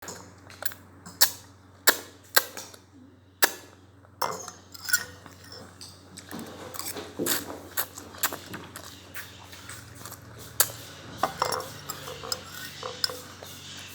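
Sharp clinks and clicks against a dish or bowl: a few well-spaced hard clicks, then a busier run of light clatter from about six seconds in, the sounds of eating from a dish.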